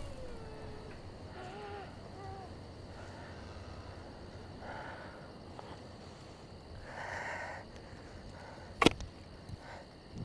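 Quiet night ambience in a forest: a few faint short calls in the first two seconds, soft rustling of movement through the undergrowth, and one sharp knock about nine seconds in.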